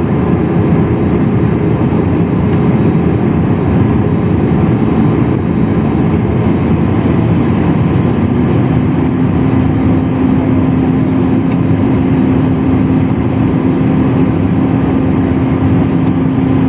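Airliner cabin noise: the steady loud rush of jet engines and airflow heard from inside the plane during the landing. An engine hum shifts lower in pitch about eight seconds in.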